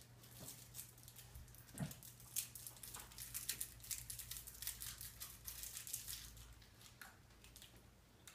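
Candy wrappers crinkling and tearing as small wrapped candies are unwrapped by hand: a quick run of sharp rustles that thins out near the end.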